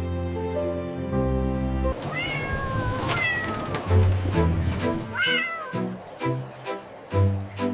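A cat meowing several times, each a gliding call, over background music; the music's held chords give way to a light, evenly pulsed tune about four seconds in.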